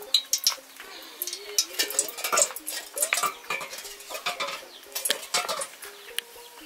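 Irregular clinks, taps and knocks of a metal cooking pot and kitchen utensils being handled.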